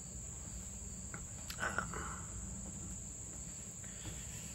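Steady high-pitched chorus of insects, with a short faint sound about a second and a half in.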